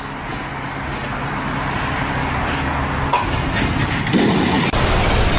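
Engine noise from a vehicle or machine running steadily, with an abrupt change in the sound about five seconds in.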